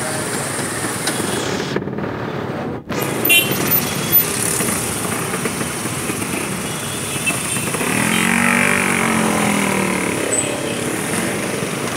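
Vespa scooter engines running in dense motorbike and car traffic, heard from the saddle of a moving scooter. Around eight seconds in, an engine's pitch rises and falls for a couple of seconds.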